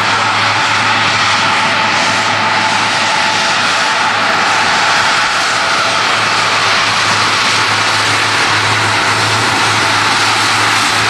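Twin rear-mounted turbofans of a Bombardier CRJ regional jet running at taxi power: a steady jet rush with a low hum underneath.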